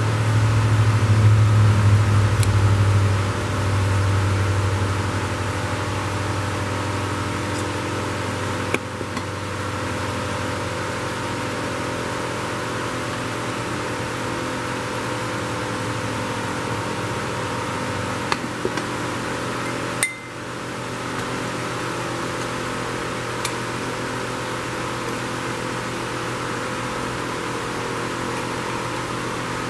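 A steady machine hum, loudest for the first few seconds, with a few light metal clinks as a screwdriver works on a marine carburetor's aluminum body and its small parts are handled.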